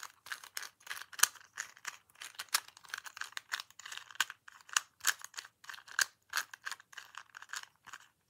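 Plastic 3x3 puzzle cube being twisted quickly by hand, its layers clacking with each turn in a fast, uneven run of clicks that stops just before the end.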